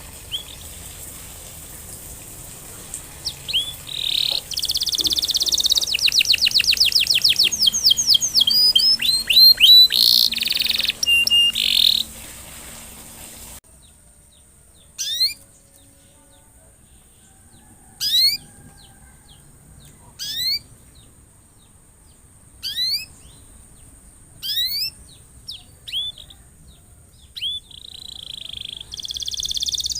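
Domestic canary singing. It gives dense, fast trills and rolls of rapidly repeated notes, then stops abruptly. After that come single short downward-sweeping chirps every couple of seconds, and a trill starts again near the end.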